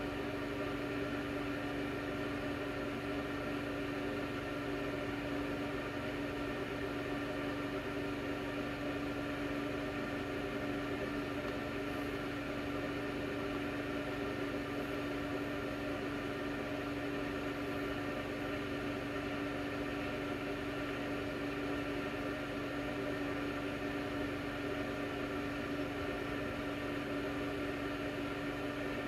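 A steady, unchanging hum made of several steady tones, the strongest low-pitched, over a soft hiss.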